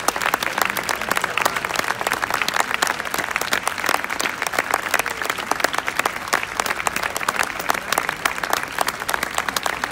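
Crowd applauding: dense, steady clapping from many hands with no pause.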